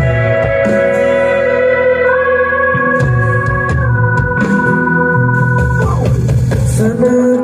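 Live band music through a large outdoor concert PA during a sound check: an organ-like keyboard holds chords that change every couple of seconds over steady bass notes, then slides down in pitch just before the end.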